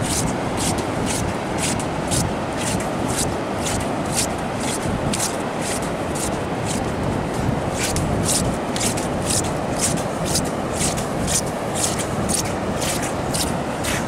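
Fishing reel being cranked steadily to bring in a hooked fish: a rhythmic scraping tick about two to three times a second, over wind noise on the microphone.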